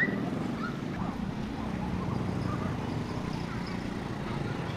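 Busy market background: a murmur of voices over a steady low hum of engines, with a brief high squeak at the very start.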